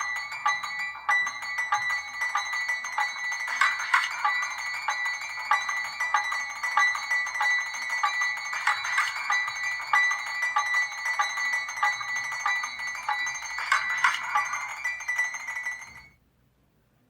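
LG Prada 3.0 phone ringtone playing: a fast run of high, quickly repeated electronic notes with no bass, which cuts off suddenly about sixteen seconds in.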